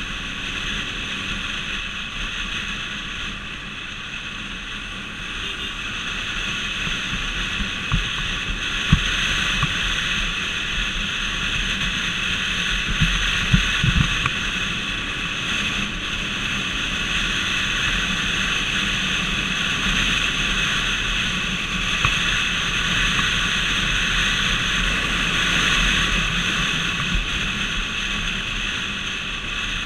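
Steady road and wind noise of a vehicle travelling at highway speed, swelling slightly at times, with a few short low thumps about eight seconds in and again around thirteen to fourteen seconds in.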